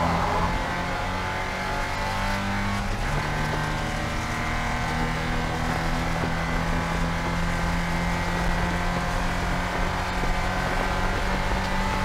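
Porsche 944 Spec race car's 2.5-litre four-cylinder engine running hard at racing speed, heard onboard. Its pitch drops about three seconds in, then holds and slowly climbs again.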